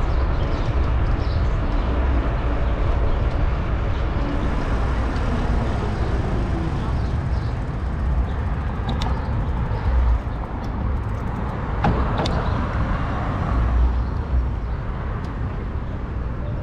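Wind rumbling over a bicycle-mounted action camera's microphone while riding along a street, mixed with tyre and road noise, with a couple of sharp ticks past the middle.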